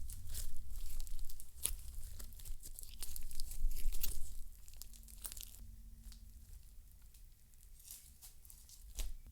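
Red slime being squeezed and stretched, giving a dense run of crackling, popping clicks that thin out after about five seconds, with one louder pop near the end.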